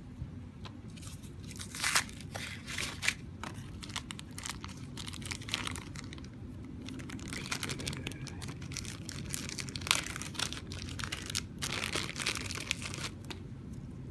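Packaging being handled and opened: cardboard rustling, then a plastic bag crinkling as it is handled and pulled open, with irregular crackles and small clicks throughout.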